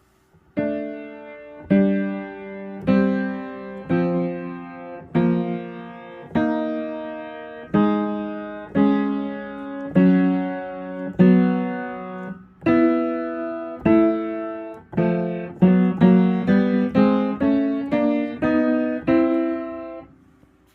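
Piano being played: a slow succession of struck chords about one a second, each ringing and dying away, then quicker notes near the end before the playing stops.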